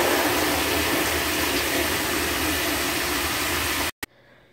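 Handheld shower head spraying water into a plastic bucket as it fills, a steady hiss of spray on water. It cuts off suddenly near the end.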